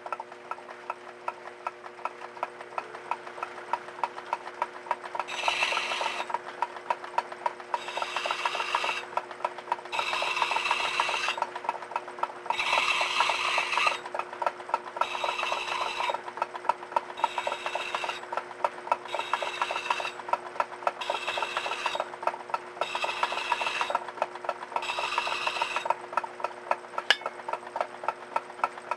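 Craftsman 109 lathe running with a steady hum and constant rapid ticking from its drive. About ten short scraping passes, roughly two seconds apart, break the sharp edge of the spinning metal workpiece.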